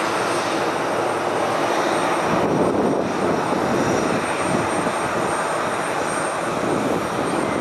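ATR 42-600's twin Pratt & Whitney Canada PW127M turboprops at takeoff power during the takeoff roll: a loud, steady engine and propeller drone.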